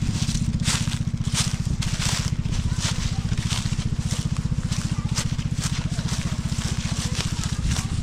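Footsteps crunching through dry fallen leaves, roughly one to two steps a second, over a steady low rumble.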